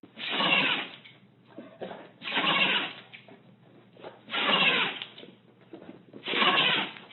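An animal sneezing four times in a row, each sneeze a short, loud burst of breath about two seconds after the last.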